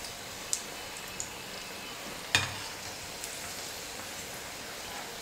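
Potato roll samosas deep-frying in hot oil, a steady sizzle. A perforated metal spoon turning them adds a few light clicks and one sharper knock a little over two seconds in.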